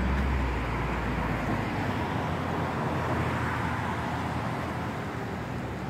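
Road traffic: a steady wash of car engine and tyre noise from passing cars, a little fuller in the middle and easing off slightly near the end.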